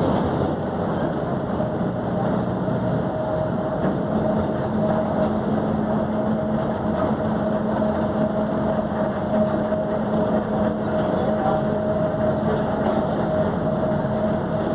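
Volkswagen 17.230 OD bus under way, its differential growling loudly as a steady whine over the engine and road noise. A second, lower steady tone joins about four seconds in.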